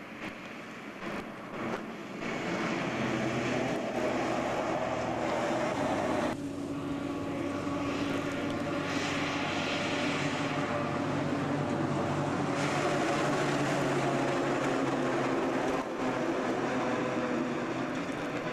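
Heavy diesel trucks running past on a road, a steady engine drone with a low hum under it. About six seconds in the sound changes abruptly to a different truck's drone, which holds on steadily.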